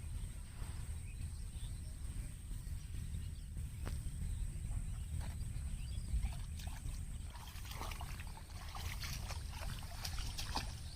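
Wind rumbling on the microphone under a thin, steady high tone. Light water splashing and sloshing, in short bursts, starts about two-thirds of the way in.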